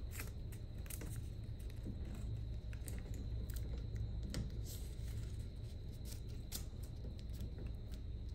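Faint scattered clicks and rustles of handling over a steady low hum.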